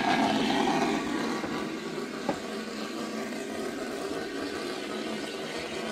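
Metropolitan Railway No. 1 steam tank locomotive moving slowly past close by, a noisy rumble that is loudest in the first second and then dies down to a steady lower background. A single sharp knock comes about two seconds in.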